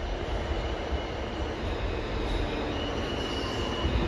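R160 subway train approaching the platform: a steady rumble of wheels on the rails, with a high wheel squeal setting in about halfway through for a second or so.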